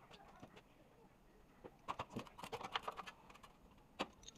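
Light clicking and clattering of air-conditioner service gear being handled: a small metal fitting and a refrigerant gauge manifold with its hoses. A quick run of clicks comes about two seconds in, and one sharp click comes near the end.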